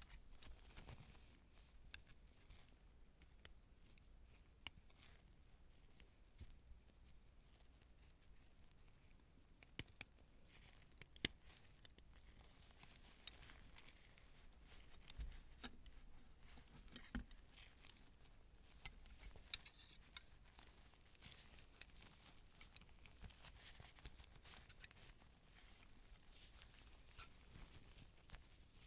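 Quiet, scattered clicks, snips and rustles of surgical instruments and supplies being handled, with two sharper clicks about a third of the way through.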